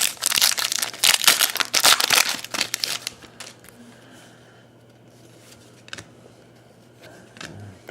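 Foil trading-card pack wrapper being torn open and crinkled: a dense, loud crackling for about three seconds, then a few soft clicks as the cards are handled.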